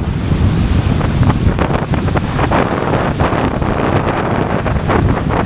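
Wind buffeting the microphone of a moving motorcycle, a loud rushing rumble that starts abruptly.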